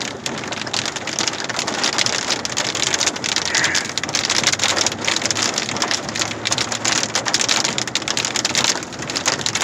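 Heavy rain beating on a pickup truck's roof and windshield, heard from inside the cab as a dense, steady patter of drops.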